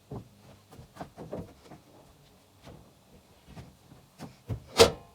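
Scattered knocks and clatters, with one loud, sharp knock near the end.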